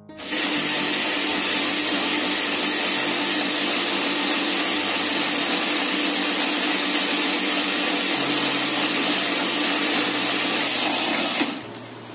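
Electric blender motor running at full speed, blending milk, yogurt, sugar, cashews and ice into lassi; it starts suddenly and cuts off about eleven and a half seconds in.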